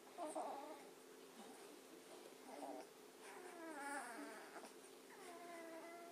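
Beagle puppies whimpering faintly: a couple of short squeaks, then two longer high-pitched whines in the second half.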